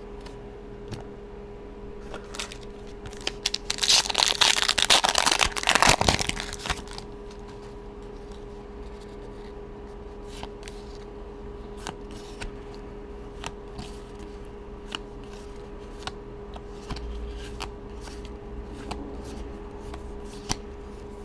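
A Magic: The Gathering booster pack's foil wrapper is torn open and crinkled for about three seconds, starting about four seconds in. After that, the cards are slid and flicked through one by one, with soft clicks.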